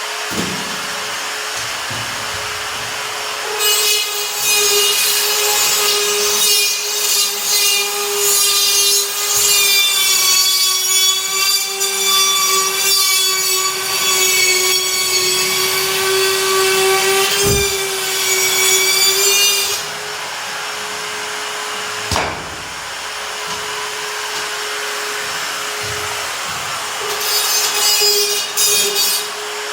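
DeWalt DCS551 cordless drywall cut-out tool running with a steady high whine, cutting through gypsum board with a louder, rougher noise from about four seconds in until about twenty seconds, then spinning free, and cutting again briefly near the end.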